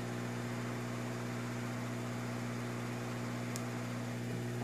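Hot air gun's blower running steadily, a constant hum with an airy hiss, as it heats a phone circuit board to desolder a chip.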